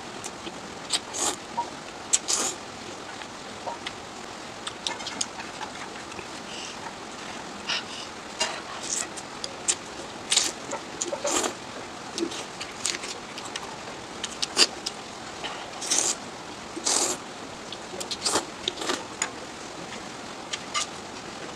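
A person eating noodles close to the microphone: irregular short slurps and chewing smacks with pauses between them.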